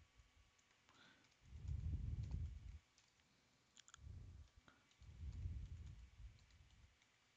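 Faint computer mouse clicks while navigating a web page, with three low, muffled rumbles in between, the longest about a second and a half in.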